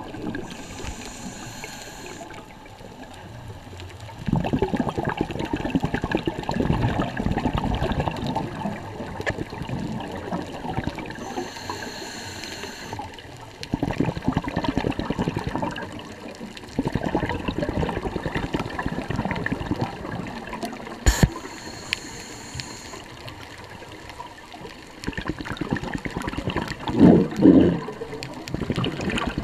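Scuba diver breathing through a regulator underwater: a short hiss on each inhale, then a longer gurgle of exhaust bubbles, about three breaths in turn.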